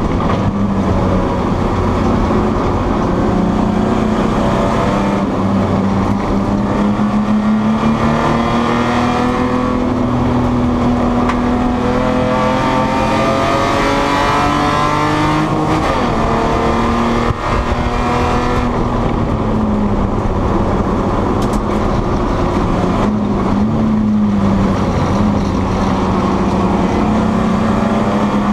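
A Spec E30 BMW's straight-six race engine, heard from inside the stripped cabin under racing load. The revs climb steadily for several seconds, dip sharply at a gear change past the middle, fall away, then rise and hold again, over steady road and wind noise.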